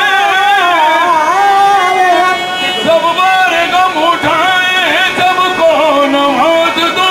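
Qawwali singing: one voice holding long notes with ornamented bends and slides in pitch.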